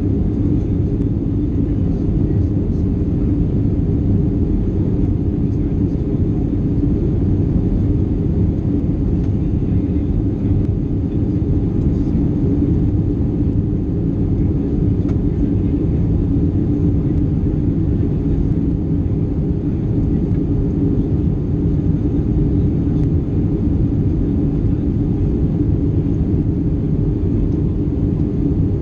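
Steady in-flight cabin noise of an Airbus A320-232 from a window seat over the wing: the low, even rush of airflow and its IAE V2500 turbofan engines, with a faint steady high whine above it.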